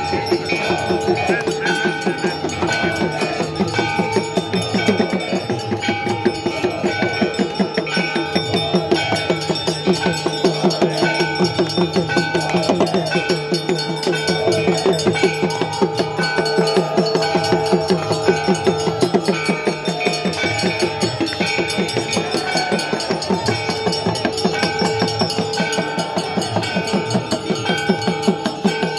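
Temple bells of a Hindu aarti ringing rapidly and without a break, several ringing tones over a fast, steady beat of strikes, with drumming underneath.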